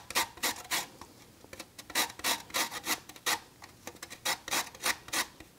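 Lemon being zested on a stainless steel box grater: the rind rasps over the grater's teeth in repeated short strokes, about two or three a second.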